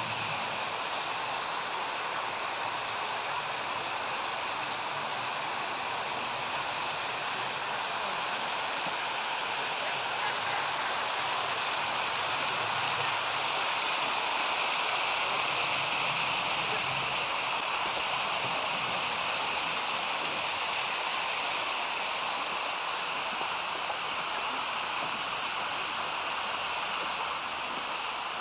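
Mountain creek tumbling over a cascade of small waterfalls: a steady rush of water, a little louder around the middle.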